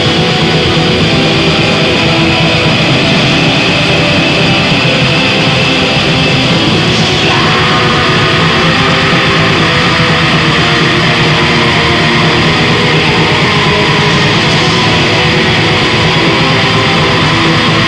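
Raw black metal: dense, distorted electric guitar over drums, loud and unbroken, with the riff changing about seven seconds in.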